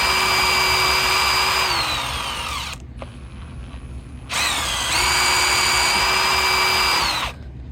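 Power drill spinning a rusty socket against WD-40-soaked steel wool to clean it: it runs at a steady speed, winds down and stops a little under three seconds in, then starts again about a second and a half later and winds down near the end.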